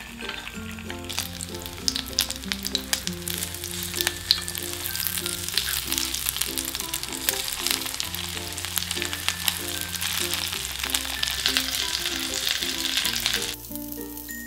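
Egg-battered mushroom pancakes (beoseot-jeon) sizzling in hot oil in a nonstick frying pan, a steady hiss with frequent small pops. The sizzle cuts off about a second before the end.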